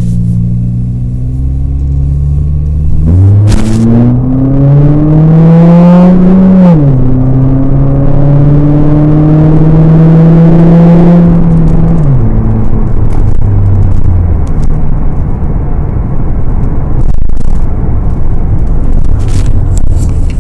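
Oldsmobile Alero engine heard through a newly clamped aftermarket muffler: idling, then revved about three seconds in, climbing to a peak, easing off and held at raised revs until about twelve seconds in, then dropping back to idle. The exhaust is loud but clean, no longer the raw note of a bare pipe.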